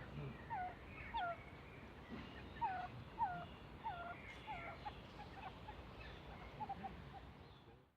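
An animal calling: a run of short chirps that each slide downward in pitch, about two a second, growing sparser and fading out near the end.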